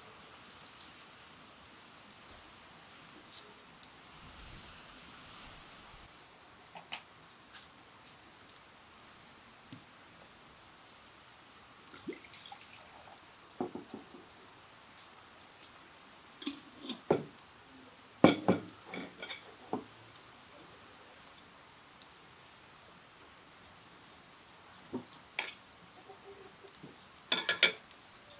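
Scattered clinks and knocks of cutlery against clay dishes, loudest about two-thirds of the way through, with a drink poured from a glass jug into a clay cup.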